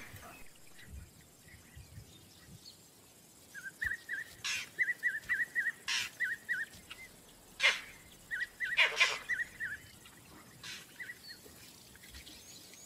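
Vervet monkey alarm calls: a run of quick high chirps, about four or five a second, broken four times by a loud sharp bark. The calls warn of an approaching predator.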